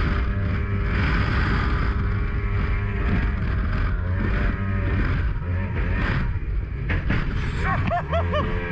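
Mercury 2.0 litre V6 135 two-stroke outboard running at high speed, heard from the speedboat's cockpit with wind and water noise, at about 100 km/h.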